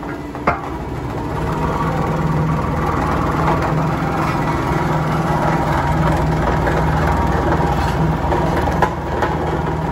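Bomag single-drum road roller's diesel engine running steadily as the roller drives closer, growing louder over the first couple of seconds and then holding. A sharp click about half a second in and a few fainter clicks near the end.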